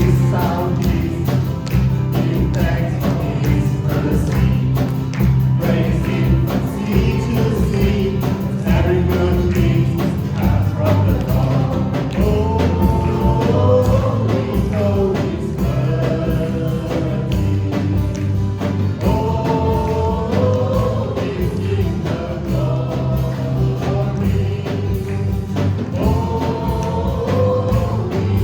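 A worship band and a group of singers performing a praise song, voices carrying the melody together over bass and a steady drum beat.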